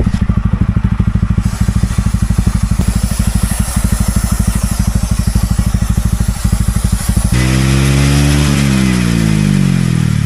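TVS Ronin's single-cylinder engine idling with even firing pulses, a hiss over it in the middle; about seven seconds in the revs rise and hold, then wind back down near the end.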